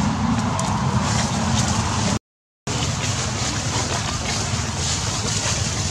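Steady outdoor background noise with a low rumble and hiss, broken by half a second of silence a little over two seconds in.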